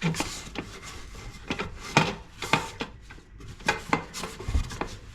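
Rubbing and scraping on the toilet's flush valve seating surface as it is wiped clean, broken by several sharp clicks and knocks of hard parts.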